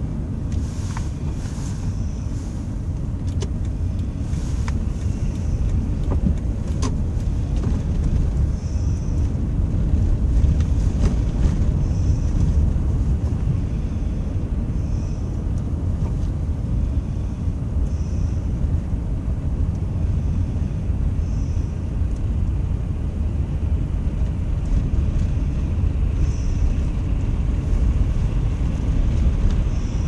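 Steady low road rumble of a car driving slowly on an ice-covered highway, heard from inside the cabin: engine and tyre noise, with a few faint clicks.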